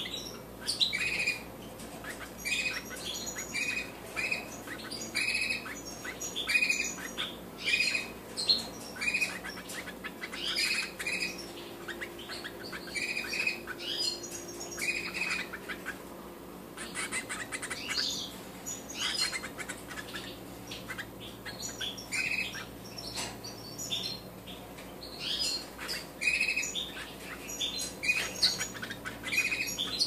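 Nestling goldfinch hybrids begging while being fed: repeated short, high chirps, about two a second, with a brief lull about a third of the way in.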